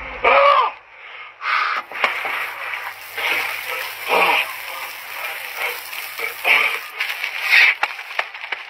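Shower water spraying and splashing, with several short vocal outbursts over it.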